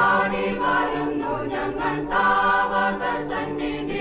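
A chorus of voices singing held notes over the accompaniment of a Malayalam Christian devotional song.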